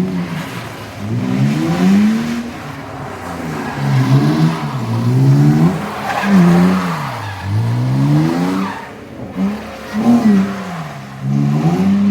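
Performance car engine revving hard as the car drifts, its pitch climbing and dropping again and again every second or two with the throttle and gear changes.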